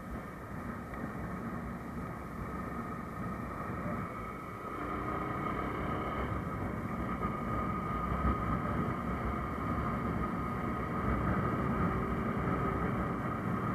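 Motorcycle engine running at road speed, with wind rumbling on the microphone; it gets a little louder about five seconds in.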